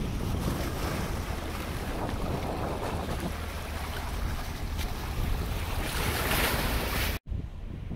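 Wind buffeting the microphone over small sea waves washing against a concrete seawall, with a louder hissing wash about six seconds in. The sound cuts off suddenly near the end and turns much quieter.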